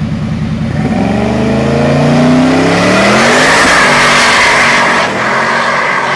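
Chevrolet Camaro's twin-turbo V8 idling, then revving up about a second in and held at high revs while the rear tyres spin and squeal in a smoky burnout. The revs dip briefly about five seconds in.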